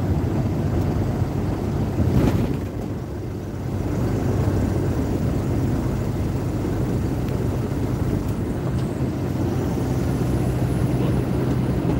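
Big rig's diesel engine and road noise droning steadily inside the cab at highway speed, with a single thump about two seconds in.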